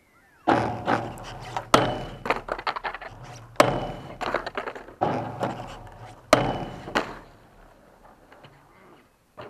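Skateboard wheels rolling close by on concrete, with repeated sharp clacks and bangs as the board and trucks strike and grind a metal handrail and land. The loudest hits come about two, three and a half and six seconds in.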